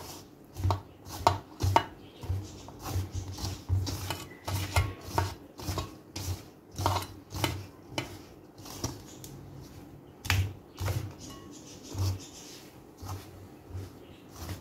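Hands rubbing desi ghee into fine wheat flour in a bowl: irregular scrunching, pressing strokes, about two a second, each with a soft thud.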